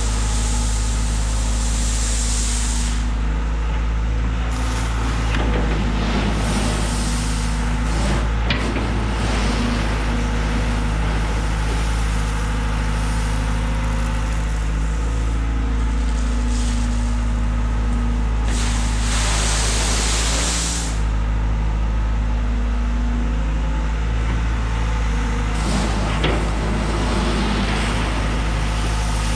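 Engine of a compact loader running steadily while spreading stone. Two bursts of hiss, at the start and about two-thirds through, and a few knocks.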